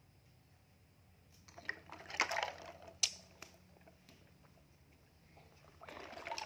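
Water splashing and sloshing in a plastic basin as a hand moves plastic toys through it, with a few sharp clicks. It comes in two bouts: about a second and a half in, and again near the end.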